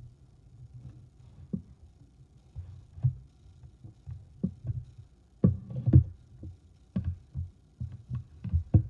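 Irregular low thumps and bumps, over a dozen, a few of them sharper knocks, loudest about halfway through.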